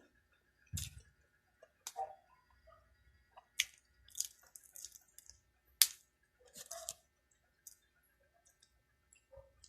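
Close-up chewing and mouth sounds of a person eating chicken curry and fried chicken: irregular wet smacks and sharp clicks, the loudest about six seconds in.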